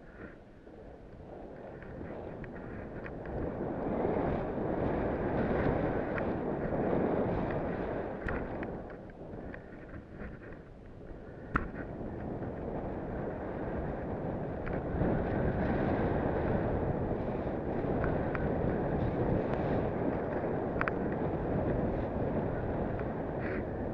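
A rider sliding downhill through tracked powder snow: a rushing hiss of snow under the feet mixed with wind buffeting the camera microphone. It builds over the first few seconds, eases off for a couple of seconds around the middle, then holds steady, with a sharp click near the middle.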